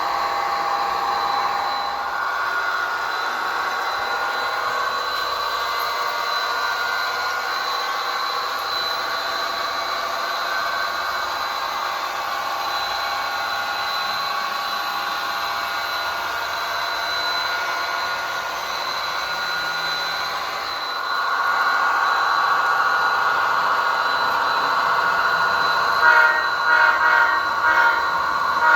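An HO scale SDP40F model locomotive's digital sound running through its small onboard speaker: a steady diesel engine sound that steps up in level about two-thirds of the way through, then a few short horn blasts near the end.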